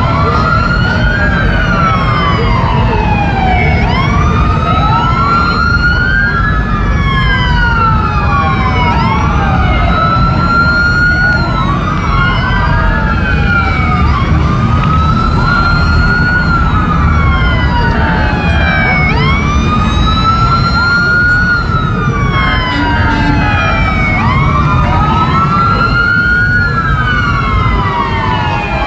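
Several emergency-vehicle sirens wailing at once, each rising and falling over about two to three seconds and overlapping out of step with the others, over a steady low rumble.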